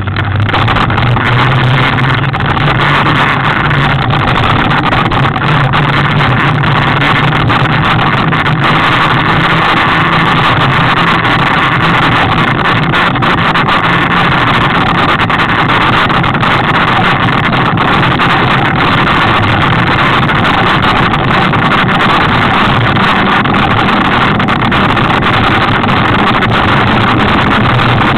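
Steady, loud rushing and rattling from a camera mounted on a mountain bike's handlebars as the bike rolls over a dirt track: wind on the microphone and the bike jolting over the ground.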